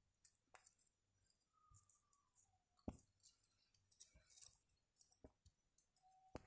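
Near silence with a few faint clicks and taps, the clearest about three seconds in, from a small circuit board and soldering iron being handled.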